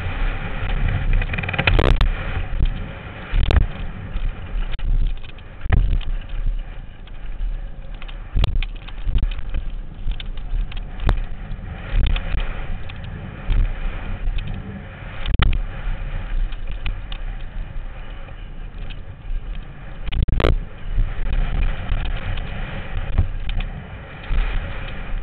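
Mountain bike riding a dirt four-cross track: a continuous rough rumble of motion and wind, broken every few seconds by sharp knocks and bumps, the strongest about 20 seconds in.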